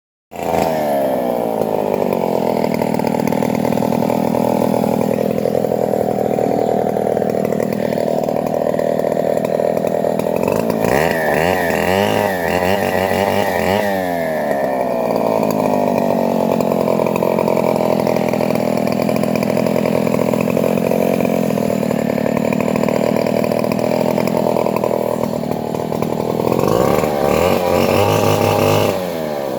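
Two-stroke chainsaw running hard while cutting a coconut palm trunk, starting abruptly and holding a steady high speed, with the pitch wavering up and down as the load changes about a third of the way through and again near the end.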